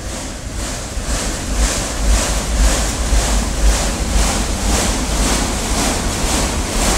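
Freight train's autorack cars rolling past close by: a steady rushing roar of steel wheels on rail with a deep rumble, pulsing about twice a second, a little louder from about a second in.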